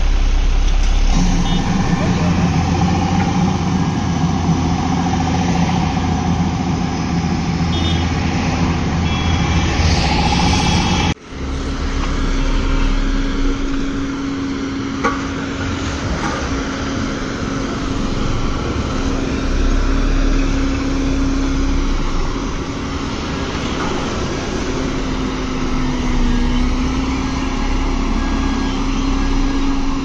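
LiuGong single-drum road roller's diesel engine running steadily as the machine drives over a dirt road bed. The sound breaks off for an instant about eleven seconds in and resumes at a slightly different steady pitch.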